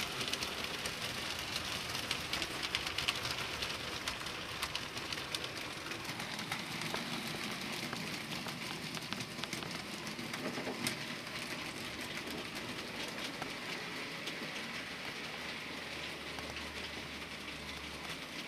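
HO-scale model goods train running on the layout track: a dense, rapid clicking and rattling of the wagons' wheels over the rails and rail joints, growing slightly fainter towards the end.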